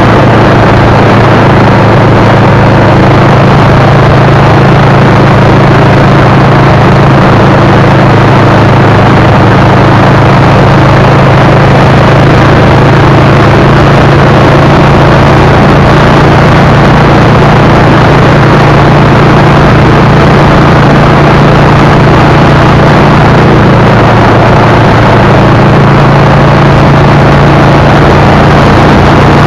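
Vehicle engine droning at a steady pitch while cruising at highway speed, under loud, even road and wind noise.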